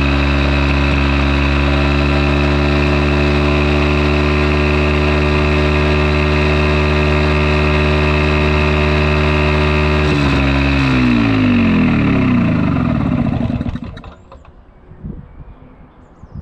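Fichtel & Sachs ST-204 two-stroke engine driving a generator, running steadily at constant speed, then shutting down about ten seconds in, its pitch falling as it coasts to a stop over about three to four seconds.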